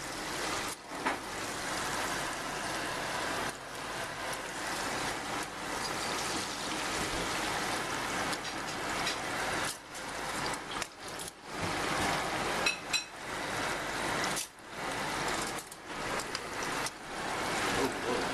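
Breaded catfish pieces sizzling and crackling in hot vegetable oil in a frying pan: a steady hiss that drops out briefly several times.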